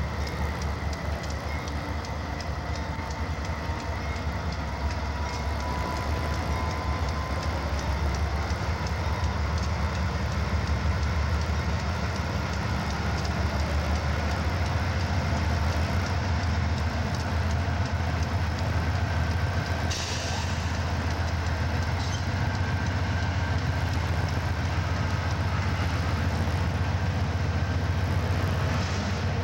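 CSX freight train crossing a steel girder bridge: diesel locomotive engines running with a steady low drone and wheels clicking over the rails, with a short hiss about two-thirds of the way through.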